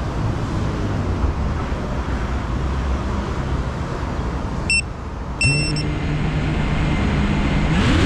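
Steady background traffic noise. About five seconds in come two short electronic beeps, then a steady low hum starts and holds, like an FPV quadcopter armed on the ground with its motors at idle.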